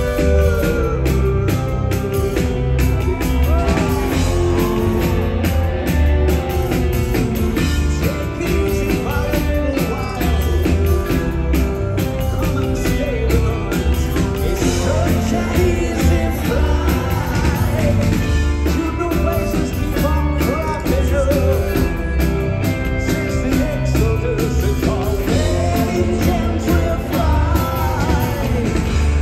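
Live rock band playing: a male lead vocal sung into a handheld microphone over drums, bass and guitar, loud and steady throughout.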